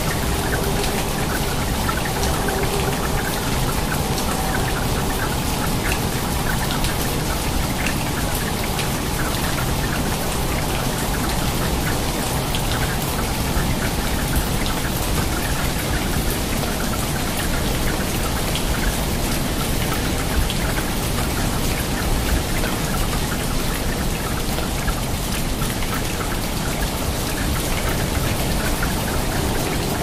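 Steady rain falling onto water: an even hiss dotted with many separate drops splashing.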